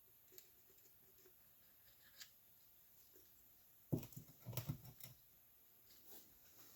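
Faint clicks of parts and tools being handled, then a sharp knock about four seconds in followed by a second of light clattering.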